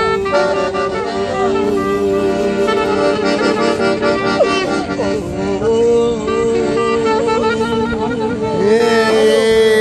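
Clarinet and accordion playing a tune together live, the clarinet melody sliding between notes over steady held notes; it gets louder near the end.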